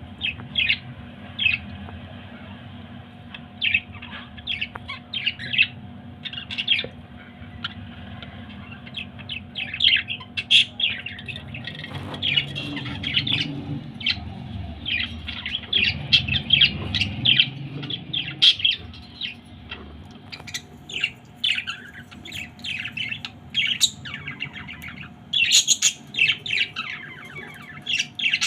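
Pet parrots squawking and chirping in many short, sharp calls, some in quick runs, over a steady low hum.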